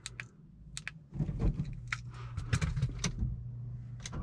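Sharp clicks of handling in a car's cabin. From about a second in come rustling and more clicks over a low steady hum.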